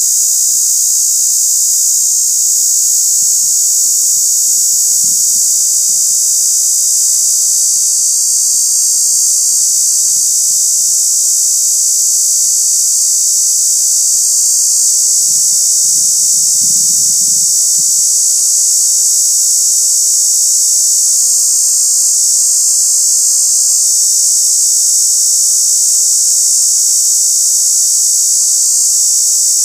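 A cicada's loud, steady, high-pitched buzz that runs on without a break: a god awful racket.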